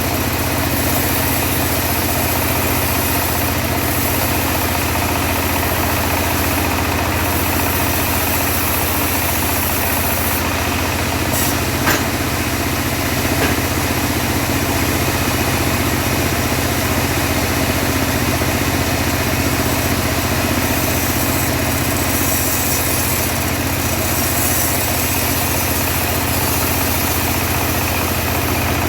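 Homemade portable bandsaw mill running steadily under engine power, with one brief sharp click about twelve seconds in.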